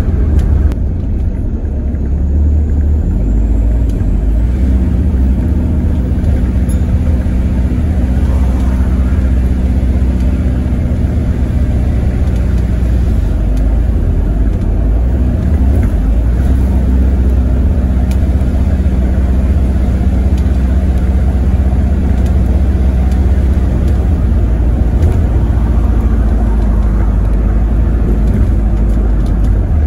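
Alexander Dennis Enviro400H hybrid double-decker bus heard from inside the lower deck while travelling at speed: a loud, steady low rumble from the engine and running gear over road noise, the engine note shifting up and down a few times.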